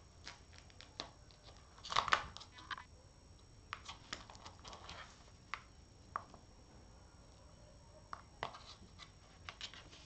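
Ball rattling and clicking around the inside of a plastic circular track toy as a cat paws at it: irregular clicks and short rattles, the loudest cluster about two seconds in.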